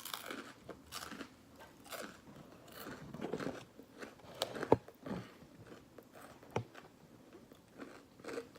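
Close-miked open-mouth chewing of syrupy waffles, with irregular wet lip smacks and a few sharper clicks about halfway through.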